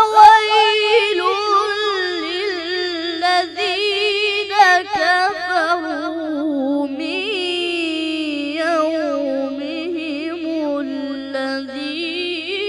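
A boy reciting the Quran in the melodic tajweed style, his voice drawing out long, wavering, ornamented phrases that start right after a pause.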